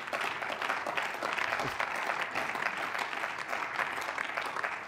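Members of parliament applauding: many hands clapping steadily.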